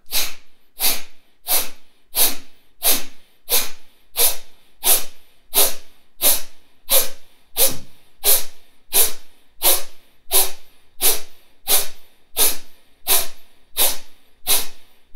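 Kapalabhati breathing: a man's short, forceful exhalations through the nose, pumped out at an even pace of about three every two seconds, each a brief sharp puff of air.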